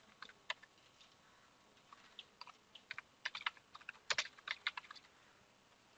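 Computer keyboard being typed on as a command is entered: a few separate keystrokes, then a quicker run of key clicks from about two seconds in that stops about a second before the end.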